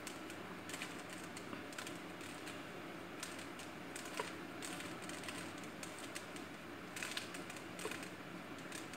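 Plastic 3x3 puzzle cube being turned by hand, its layers clicking and clacking in irregular short runs of quick clicks.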